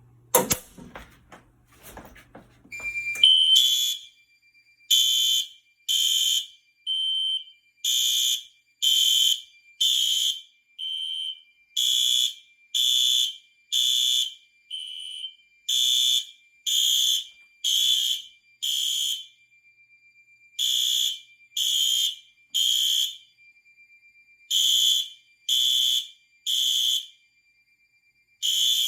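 Fire alarm horns sounding after a System Sensor 2151 smoke detector is tripped with a test magnet, with a few clicks just before they start. The horns give loud blasts about once a second, then settle into groups of three with a pause between (the temporal code-3 evacuation pattern), over a steady high tone.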